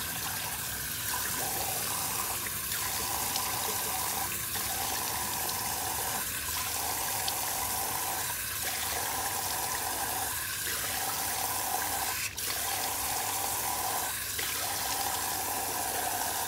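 Tap water running into a sink while a face is rinsed by hand, the steady rush breaking briefly about every two seconds, with one sharp click about twelve seconds in.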